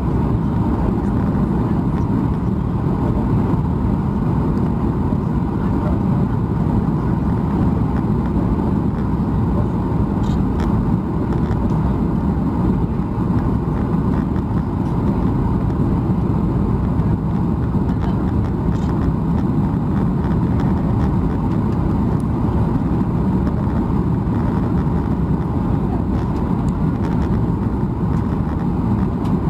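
Steady cabin noise inside a Boeing 737 MAX 8 airliner: the rumble of its CFM LEAP-1B engines and the airflow, heard from a seat over the wing.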